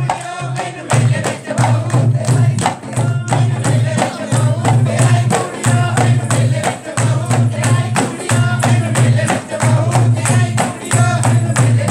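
A dholak drum played by hand in a fast, steady Punjabi folk rhythm, deep bass strokes pulsing under sharp slaps, with hand claps keeping the beat.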